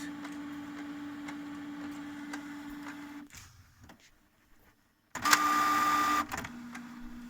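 Canon MG5750 inkjet printer's mechanism running as it starts a print job: a steady hum that dies away after about three seconds, then a louder whirring with a high whine for about a second, then the lower hum again.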